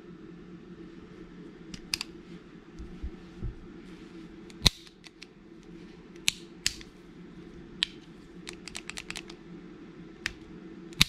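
Clicks and snaps of a Beretta pistol's controls being worked by hand: scattered single clicks, one hard snap about halfway through and a quick run of small clicks a little later, over a steady low hum.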